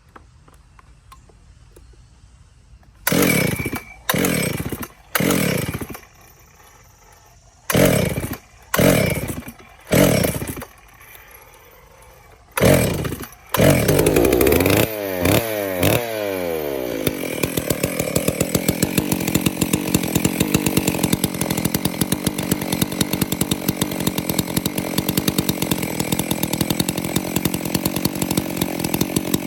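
Makita 6401 two-stroke chainsaw, fitted with a Stihl 046 dual-port muffler under a West Coast Saw bark box cover and running without bar or chain, being pull-started. It coughs on about seven short pulls, catches about halfway through, revs, then falls back and runs steadily.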